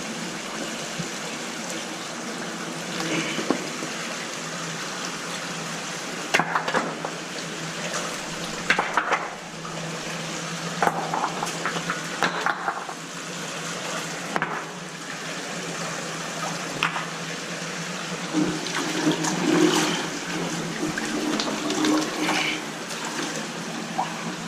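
Creek water running steadily in the shallows, broken by short splashes and knocks as stones and debris are shifted by hand in the water while searching for coins.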